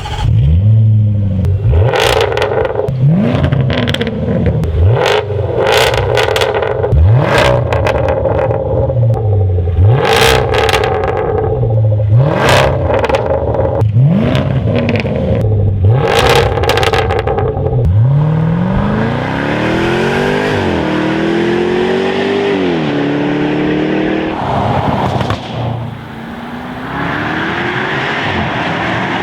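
Range Rover Sport SVR's supercharged V8 through an aftermarket sport exhaust with active valves, blipped hard about every two seconds, each rev falling away into loud pops and crackles on the overrun. About two-thirds of the way through it pulls away under load, the pitch climbing and dropping back at two gear changes.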